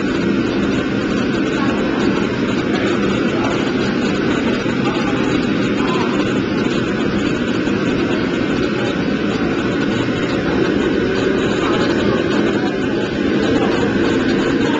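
Gas burner of a commercial Chinese wok range running lit under a wok: a steady, even roar.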